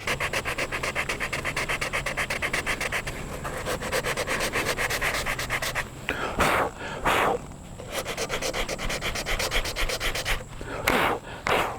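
80-grit sandpaper rubbed by hand back and forth over hardened body filler, quick rasping strokes several a second, with a few louder, longer whooshes about six and eleven seconds in.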